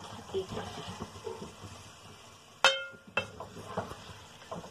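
A spoon stirring cooked pasta in an aluminium pot, with soft scraping and squishing. About two and a half seconds in, the spoon knocks sharply against the pot and the metal rings briefly, followed by a lighter knock.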